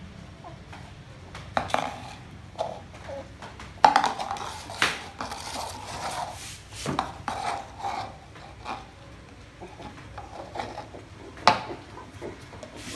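A light plastic tub knocking and scraping on a wooden floor as a puppy pushes it around with its head inside it. The clatters come irregularly, with the sharpest knocks about four seconds in and near the end.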